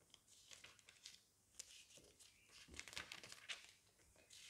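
Faint, scattered rustling and crinkling of paper being handled, a string of soft short rustles.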